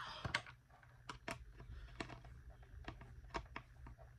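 Scattered light clicks and taps of a hand screwdriver working a screw into a vacuum cleaner's housing, with the parts being handled; the screw is not going in easily.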